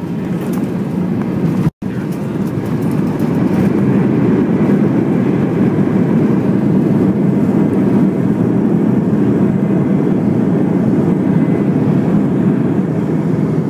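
Airbus A320 engine and airframe noise heard from inside the passenger cabin on the arrival, a steady loud rumble that swells a few seconds in and holds, typical of the landing roll.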